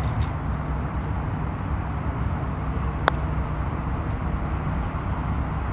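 A single sharp click of a putter striking a golf ball, about three seconds in, over a steady low background rumble.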